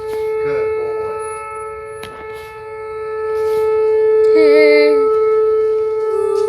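Outdoor tornado warning siren sounding a steady tone, swelling in loudness toward the middle and easing off again, signalling a severe thunderstorm warning.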